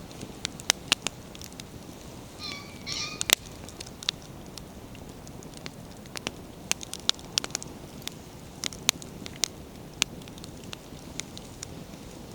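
Wood bonfire crackling, with frequent sharp pops over a low steady rush of burning. About two and a half seconds in there is a short high two-note squeak, just before the loudest pop.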